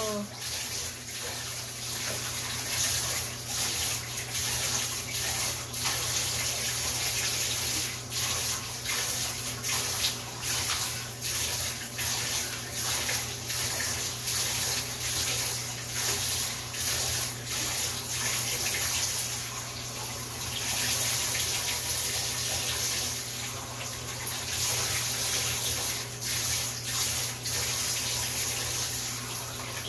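Steady rush of running water, with scattered light clicks of wooden puzzle pieces being handled.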